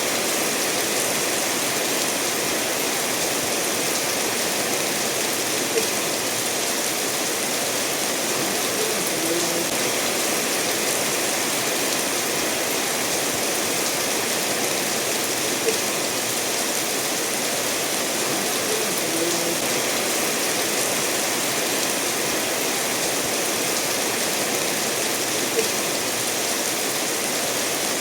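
Steady rainfall mixed with a stream flowing over stones, an even rushing hiss. A brief louder drip sounds about every ten seconds, three times.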